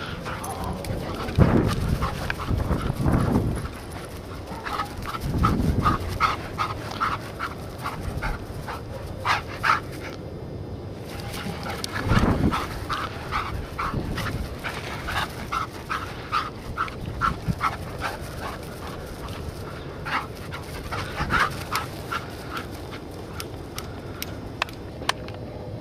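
A dog close to the microphone making short, repeated whines and pants, in runs of about three a second, with several low rumbling bumps near the start and about halfway through.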